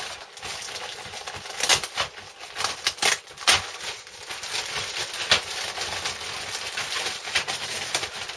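Clear plastic wrapper crinkling and rustling as bagged plastic model-kit sprues are handled and lifted, with irregular sharp crackles.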